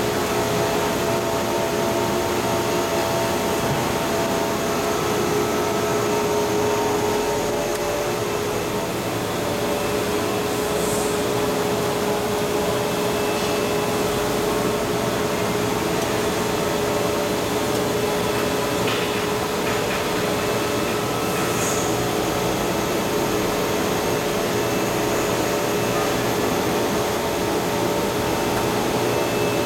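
PVC shrink film blowing machine running: a steady hum of motors and rushing air from its blower, with several steady tones held throughout.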